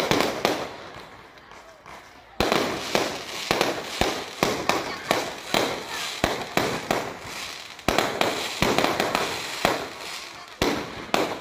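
Aerial fireworks shells bursting in a rapid string of bangs with crackling between them. The bangs thin out near the start, then a sudden loud burst about two and a half seconds in sets off a dense run of quick bangs and crackle.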